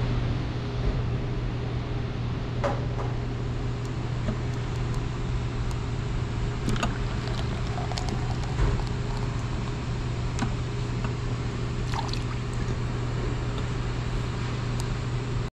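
Steady cabin hum inside a Boeing 737-800: a constant low drone with a steady higher tone and a haze of air noise. A few light clicks and knocks are scattered through it.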